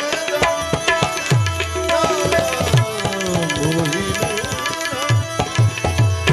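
Tabla playing a busy instrumental passage in a bhajan: quick sharp strokes, with the bass drum's low notes bending down in pitch, over a wavering melody and a steady held note.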